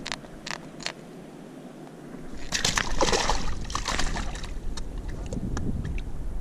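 Water splashing and sloshing at the surface beside a small inflatable boat, loudest for about two seconds from two and a half seconds in, with a few sharp clicks near the start.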